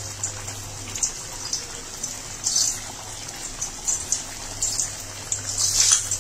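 Thick black chickpea curry simmering in a kadai, its bubbles popping and spluttering about once a second, over a steady low hum.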